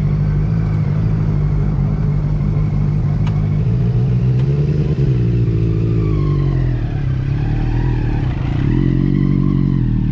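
Motorcycle engine running under way, its note rising and falling slowly as the rider changes throttle.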